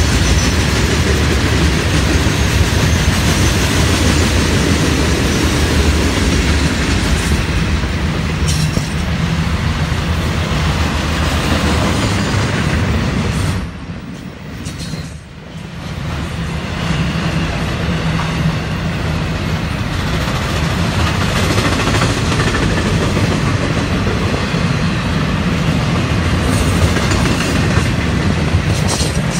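Freight cars of a long Florida East Coast Railway train passing close by, steel wheels running on the rails with a steady rumble. The noise drops for a couple of seconds about halfway through, then comes back to full strength.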